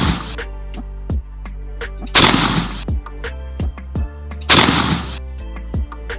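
Two shotgun shots, about two seconds in and again about two and a half seconds later, each a sudden loud blast that dies away within about half a second. They sound over background music with a steady beat.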